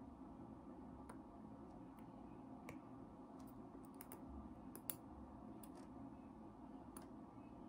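Faint, scattered metallic clicks from a needle driver and forceps being worked while suturing, one click a little louder near the middle, over a low room hum.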